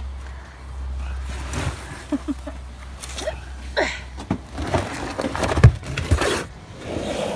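Scuffling, scraping and knocking as someone crawls about and handles plastic storage totes in a cramped crawlspace, with one sharp knock about five and a half seconds in.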